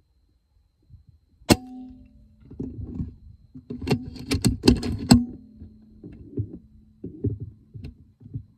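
A single sharp shot from a Hatsan Flashpup QE pre-charged pneumatic air rifle about a second and a half in. A quick run of four or five metallic clicks follows a couple of seconds later, the bolt being cycled to load the next pellet, with knocks from handling the rifle.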